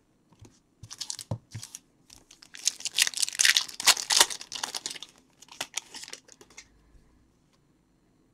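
Plastic trading card pack wrapper being torn open and crinkled, a run of rustling tears that is loudest in the middle and stops about two seconds before the end.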